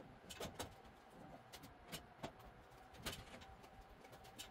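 Faint, scattered light clicks and knocks, about half a dozen, from a white metal storage cabinet being handled, its doors and shelf being worked on. A faint steady hum sits underneath.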